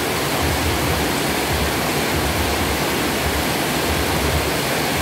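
Heavy rain falling in a steady downpour, a dense even hiss.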